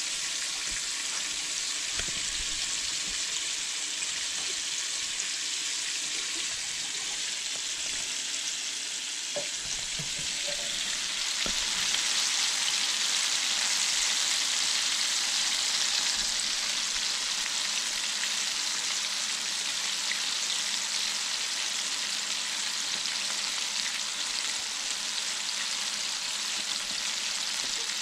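Flour-dredged burbot pieces frying in hot oil in a cast-iron skillet: a steady sizzle that grows louder about twelve seconds in.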